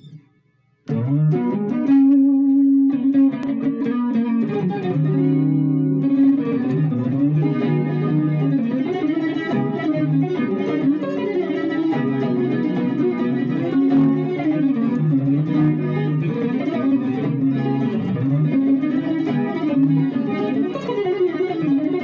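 Electric guitar playing a cascade of chord notes that ring into one another, starting about a second in and running on without a break.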